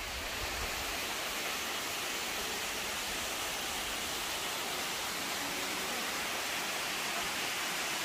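Waterfall: water pouring and splashing down a mountain cascade in a steady, even rush that fades in at the start.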